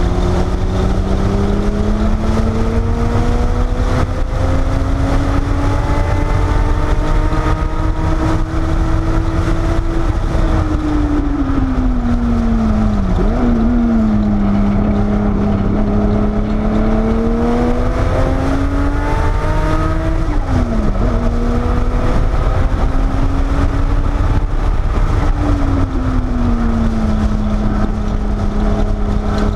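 Porsche 930 Turbo's air-cooled turbocharged flat-six, heard from inside the cabin at speed. The engine note climbs steadily for several seconds, then falls sharply with brief jumps in pitch near the middle and again about two-thirds through, climbs again, and drops and holds steady near the end. A heavy low rumble runs underneath.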